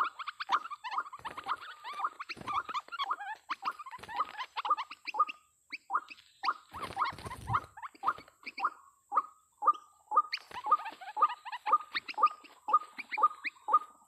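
White-breasted waterhens calling their repeated harsh "ruak-ruak" notes, a dense overlapping chorus at first, then a steady series of about two calls a second. About seven seconds in, a brief noisy scuffle as the birds fight and flap against each other.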